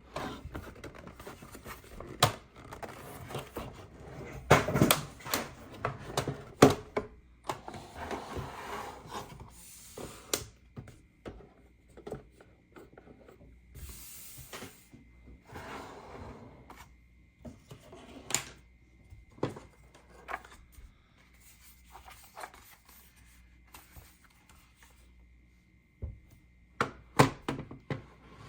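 Plastic toy pieces being handled: scattered clicks, knocks and rubbing, busiest about four to seven seconds in and again near the end.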